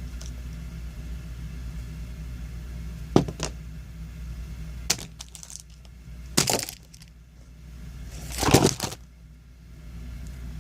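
Packaging being handled: two sharp clicks, then two short crinkling rustles about 6.5 and 8.5 seconds in, the second the loudest, over a steady low hum.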